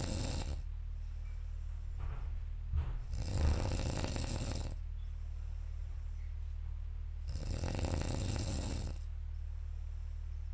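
A sleeping person snoring loudly: two long snores of about two seconds each, some four and a half seconds apart, with the tail of an earlier snore just at the start.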